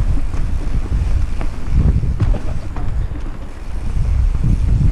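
Wind rushing over a helmet-mounted camera's microphone as a mountain bike rides fast down a dirt trail, with a low rumble and scattered knocks and rattles from the bike. The wind eases briefly about three and a half seconds in.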